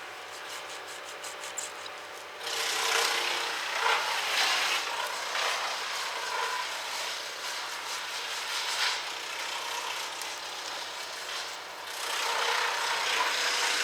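Chainsaw cutting through wood, coming in abruptly about two seconds in and running on with a short dip near the end.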